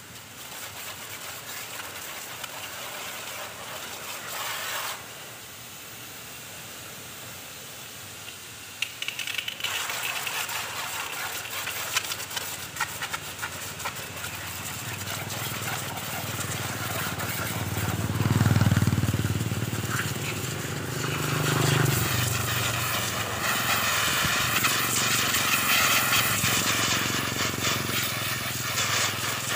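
Pressure washer spraying water in a steady hissing jet, growing louder and more spattery about ten seconds in, with two brief low swells a little past the middle.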